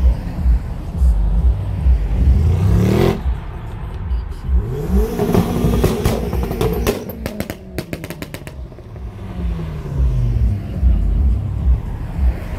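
Car engine revving, its pitch climbing twice and falling away later, over music with a heavy thumping bass beat. Near the middle the beat drops out and a quick run of sharp cracks is heard.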